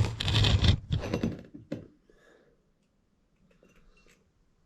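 Objects being handled and knocked about, a jangling clatter with several thunks for about two seconds, then only faint rustling.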